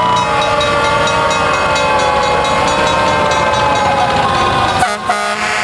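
Fire engine air horns blaring, several tones held together in one long blast that slowly sags in pitch, then breaks off with a short stutter near the end.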